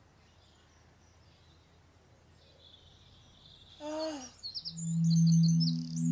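Faint birdsong over quiet outdoor ambience. About four seconds in comes a short falling voice-like sound, followed by quick high bird-like chirps and steady low synthesizer tones as the music begins.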